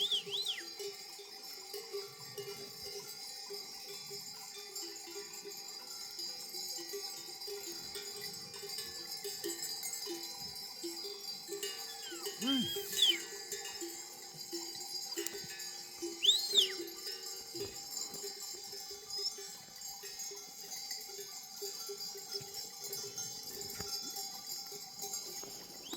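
Bells on a grazing flock of sheep, clinking and clanking steadily and unevenly, with a couple of short bleats about halfway through.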